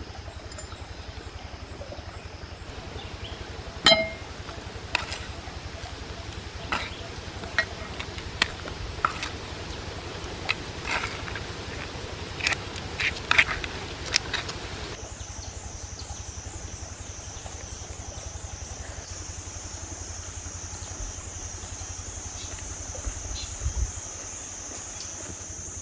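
Knife and wooden spoon clicking and clinking against a clay bowl while a papaya salad with crab is cut and mixed: about a dozen irregular sharp knocks. About halfway through these stop and a steady high-pitched buzz takes over.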